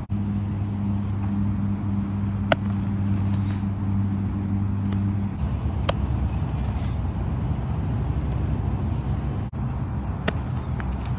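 A motor engine's steady low hum that turns into a rougher low rumble about halfway through, with three short sharp knocks spread across it.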